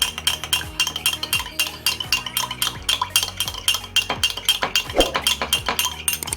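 A spoon stirring lime juice into sweet soy sauce, clinking against the side of its container several times a second in a steady rhythm.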